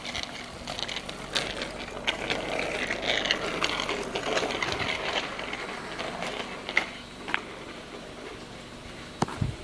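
2011 Ford Focus SE's 2.0-litre four-cylinder engine idling, heard from behind the car near the tailpipe, with a dense irregular clicking rattle over it. The rattle is louder in the first half and eases off later, with a couple of sharper clicks near the end.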